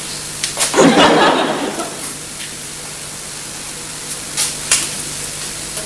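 A person's short muffled chuckle about a second in, over a steady hiss, with a few faint clicks later.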